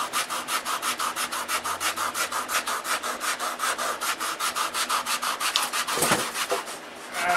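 Sandpaper rubbing on a balsa-wood block wingtip, hand sanding in quick, even back-and-forth strokes to shape the tip so it blends into the wing. There is one louder knock about six seconds in.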